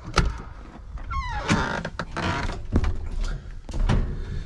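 Heavy truck's cab door and steps as someone climbs aboard. A short squeak falls in pitch about a second in, with knocks and thumps around it. The engine is not running.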